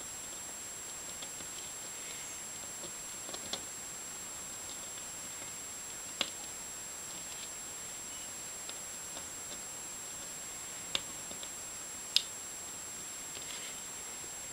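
Faint scratches and a few scattered sharp ticks of a pointed steel dip-pen nib working on paper, over a steady hiss with a thin high whine.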